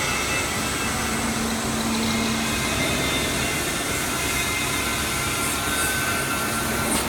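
FR-808 double-shaft automatic rewinder running with a steady mechanical whir. A low hum rises out of it for about a second and a half near the start.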